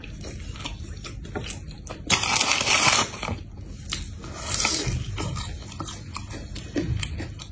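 Close-up eating sounds of a person biting into crispy fried chicken and chewing it, with wet mouth clicks. There are two loud stretches of crunching, one about two seconds in and a shorter one past the middle.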